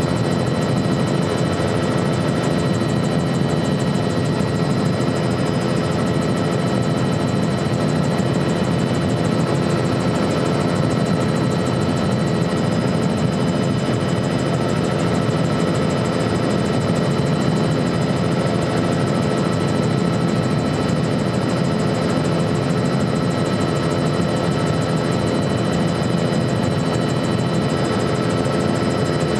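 Helicopter in flight, heard from inside the cabin: a steady, unchanging drone of engine and rotors with several high, steady whining tones over it.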